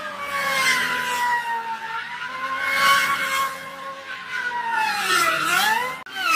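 Lamborghini Aventador V12 held at high revs while drifting in circles, with the rear tyres screeching as they spin. The revs sag and climb back about five seconds in, and the sound drops out abruptly just before the end.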